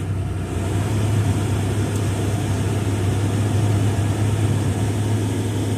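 2002 Pontiac Grand Prix GT's 3.8-litre V6 idling steadily just after a cold start, held at a fast cold idle of about 1,500 rpm, heard from inside the cabin.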